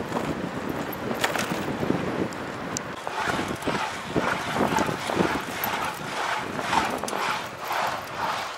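Wind buffeting the microphone of a camera mounted on a moving ElliptiGO stand-up bike, with road noise. From about three seconds in, a rhythmic pulsing comes in, roughly twice a second.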